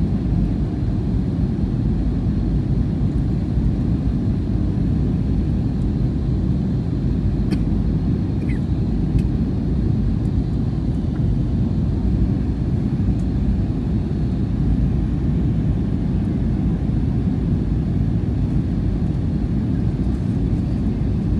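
Airliner cabin noise heard from a window seat in flight: the jet engines and rushing air give a steady, unbroken low rumble.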